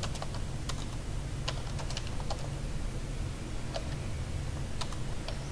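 Typing on a computer keyboard: irregular, separate keystrokes as a name is entered into a text field, over a steady low hum.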